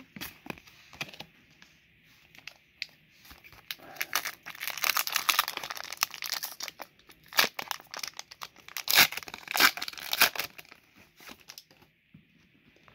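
Foil Pokémon booster pack wrapper being crinkled and torn open, with the loudest sharp rips about nine to ten seconds in. Light clicks of cards being handled come before it.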